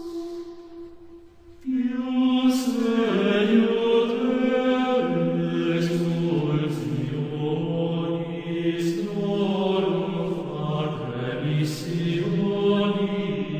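Several voices singing a slow chant in long held notes that move step by step. A held note dies away at the start, and the singing starts again a little under two seconds in.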